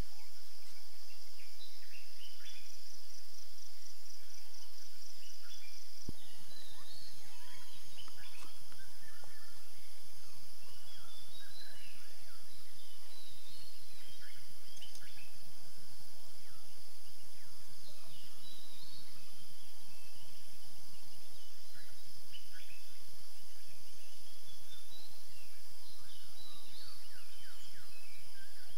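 Outdoor dawn ambience: many birds giving short chirps and whistles over a steady, high-pitched insect drone that pulses rapidly for a few seconds near the start.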